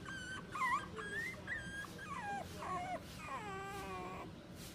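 Mixed-breed puppy whining: a string of short high-pitched whines that waver in pitch, then a longer whine about three seconds in that slides downward.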